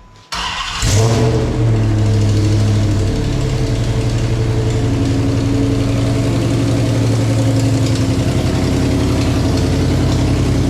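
A 2014 Dodge Challenger R/T's 5.7-litre Hemi V8 fires up about a second in through newly fitted long-tube headers and mid-pipes. It flares up, then settles into a steady, pulsing idle around three seconds in. An exhaust leak from header bolts left loose on the first startup is giving a tick.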